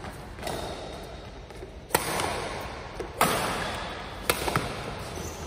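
Badminton rackets striking a shuttlecock during a rally: three sharp cracks about a second apart, about two, three and four seconds in, with a smaller knock just after the last, each echoing in the large hall.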